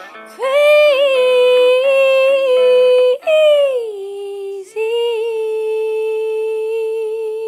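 A woman singing a slow ballad line in long, held notes with vibrato over a quiet karaoke backing track: one phrase breaks off about three seconds in, a note glides down, and a final note is held for about three seconds.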